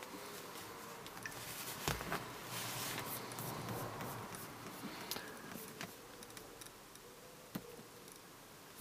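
Faint rustling of a handheld camera being handled, with a few sharp clicks scattered through it.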